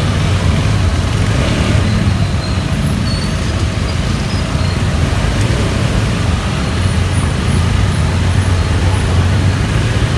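Steady low rumble of a motorcycle ride through city traffic, with the bike's engine and the surrounding vehicles blending into continuous road noise.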